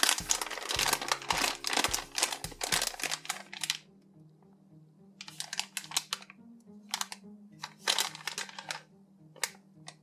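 Plastic packaging bag crinkling as the squishy croissant toy inside is squeezed and handled: a dense run of crinkles for about the first three and a half seconds, then a few short separate crinkles.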